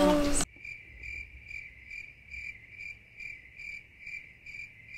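Cricket chirping, a steady, even pulse about two and a half times a second that starts abruptly about half a second in.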